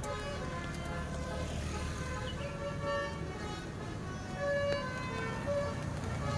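Multi-tone 'telolet basuri' bus horn sounding a tune of short notes at changing pitches, with a bus engine rumbling underneath.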